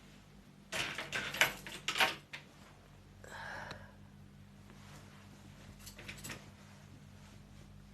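A brief clatter of knocks and clicks, as of objects being handled, lasting about a second and a half, followed by a short swish and a couple of faint ticks.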